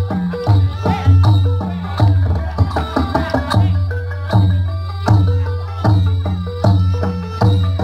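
Cambodian traditional pin peat-style music: a drum beating steadily about every three-quarters of a second under a line of short pitched percussive notes.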